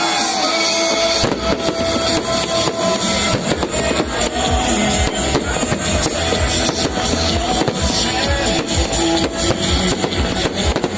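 Fireworks going off in a rapid, dense barrage of bangs and crackles, starting about a second in, with music playing alongside.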